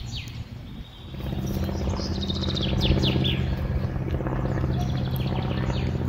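Songbirds chirping, with a burst of quick falling notes about two to three seconds in. Beneath them a steady, even motor-like hum starts about a second in and carries on.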